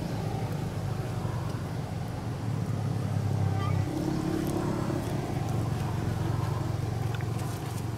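Steady low rumble of a running motor-vehicle engine, swelling slightly in the middle.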